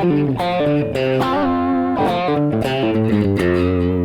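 Electric guitar played through a Rad Custom Shop Valkyrie overdrive pedal with the gain at maximum: a lead line of single notes, some held, with a smooth, sustained drive tone.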